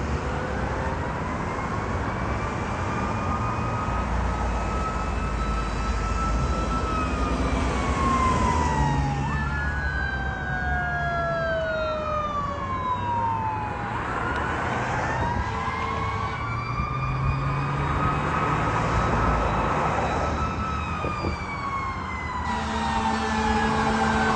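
Fire engine siren wailing, rising and falling slowly over several seconds, with a second siren tone sweeping across it and road traffic rumbling underneath. A steady horn blast joins near the end as the engine comes closer.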